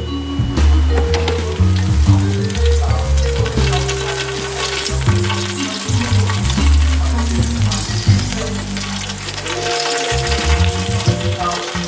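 Hot oil crackling and sizzling on air-fried chicken leg quarters fresh out of the air fryer basket, a dense run of small pops, over low background music.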